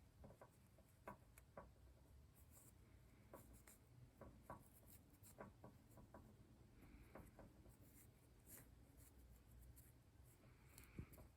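Near silence with faint, irregular small clicks and light rubbing scattered throughout, over a low steady room hum.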